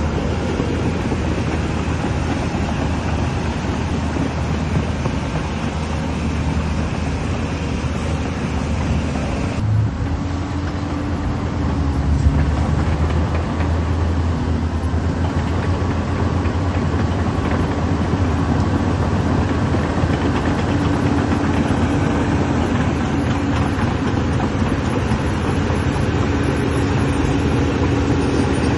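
Caterpillar 320D hydraulic excavator's six-cylinder diesel engine running steadily, with a steady whine rising above the engine note in the second half.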